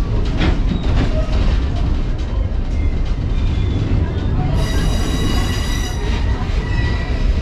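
Passenger train rolling on the rails with a steady low rumble. About four and a half seconds in, a high wheel squeal sounds for about a second and a half.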